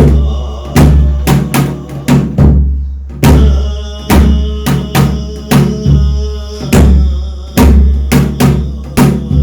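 Korean shamanic gut ritual drumming: deep drum strokes with long ringing decays, a little under two a second, in an uneven rhythm.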